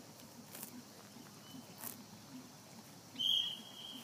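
A single loud, steady, high-pitched beep, just under a second long, about three seconds in.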